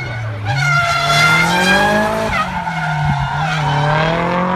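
Drift car's engine revving hard while it slides sideways with its tyres screeching. The pitch climbs about half a second in, dips briefly past the middle and climbs again as the throttle is worked.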